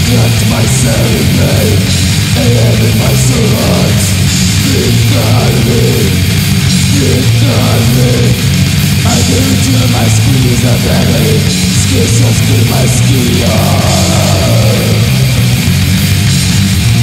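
Old-school death metal song with distorted electric guitars, played loud and without a break.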